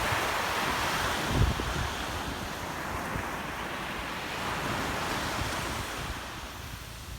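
Sea surf breaking and washing on the shore: a steady hiss that swells in the first part and eases off near the end. Wind buffets the microphone in low, gusty thumps, one stronger about a second and a half in.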